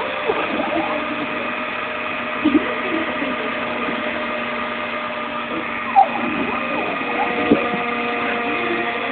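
CNC machine running, a steady machine whine made of several held tones whose pitches shift as it works. A few short sharp noises stand out about two and a half, six and seven and a half seconds in.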